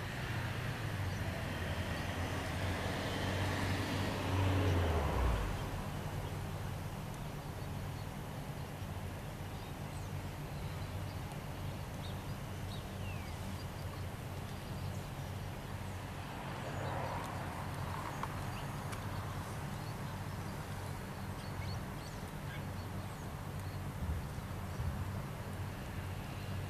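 Kobelco excavator's diesel engine running steadily, working harder twice: a swell a few seconds in that drops away about five seconds in, and a weaker one later, with a few light knocks near the end.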